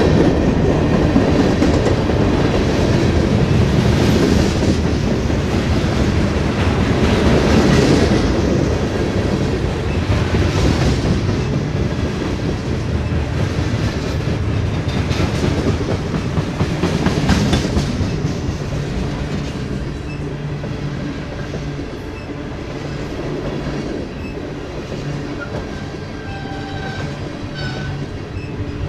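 Freight cars of a mixed train (covered hoppers and refrigerated boxcars) rolling past: a steady rumble of steel wheels on rail, with a clack now and then as the wheel sets go by. It eases off a little in the second half.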